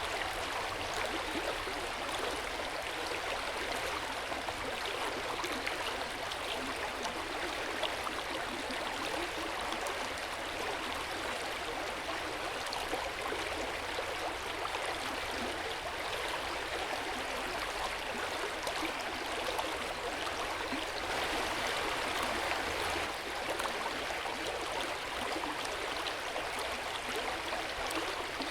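Hot-spring water running and splashing steadily into an open-air bath, an even rushing, trickling water sound that is briefly a little louder about two-thirds of the way through.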